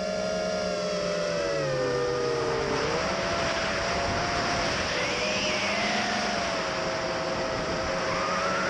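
Brushless motors of a 5-inch FPV racing quadcopter (Cobra 2204 2300kv) spinning triple-blade props, heard from the onboard camera: a buzzing whine that drops in pitch over the first few seconds as the throttle eases, then holds steady with brief rises in pitch near the middle and again near the end. Wind rushes over the camera's microphone throughout.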